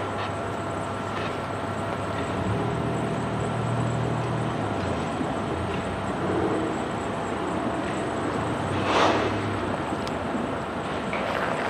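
Steady outdoor vehicle noise with an engine hum that swells for a few seconds in the first half, and a brief hiss about nine seconds in.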